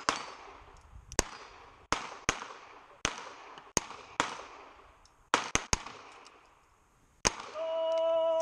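Handgun shots from several shooters firing a timed series, including a Colt Python revolver: about eleven sharp, echoing shots at uneven intervals, some in quick pairs and a fast triple. Near the end a steady, pitched signal tone starts.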